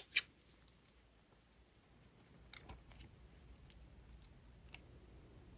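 Two sharp snips close together: flush cutters trimming the ends of a wire toggle. A few faint clicks of wire and tools being handled follow, with one sharper tick near the end.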